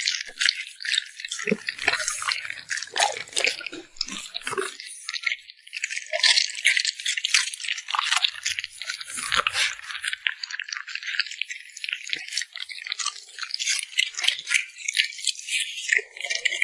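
Dog eating close to the microphone: a dense run of quick, wet clicks and crunches from chewing and lip smacking.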